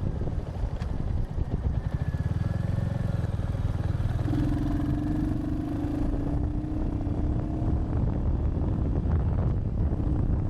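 Royal Enfield Hunter 350's single-cylinder engine running under way, its pitch rising slowly through the middle, with wind buffeting on the action camera's microphone.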